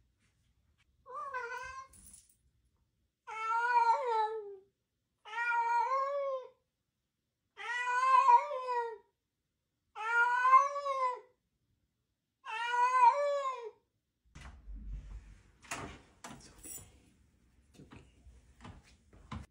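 Orange tabby cat meowing at a closed door, six long calls about two seconds apart: the cat calling for its absent owner. Near the end come clicks, knocks and rustling as the door opens and someone comes in.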